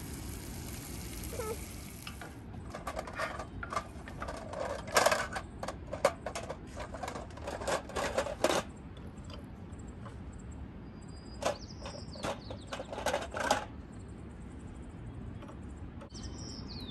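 Metal kitchen tongs clicking and clattering against a frying pan and plate while serving sausages and onions, in two runs of rapid sharp clicks, the first longer and louder, over a steady low rumble.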